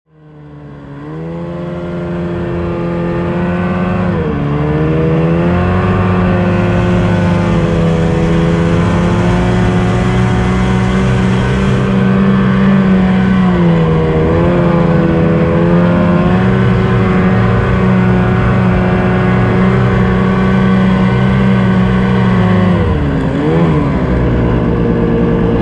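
Ski-Doo snowmobile engine running steadily under way, fading in at the start. Its pitch dips and comes back up about four seconds in, again around fourteen seconds, and near the end as the throttle is eased and reopened.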